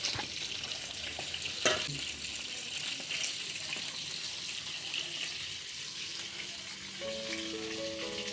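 Food sizzling steadily as it fries in a pan, with a sharp knock of a utensil about a second and a half in. Background music with held notes comes in near the end.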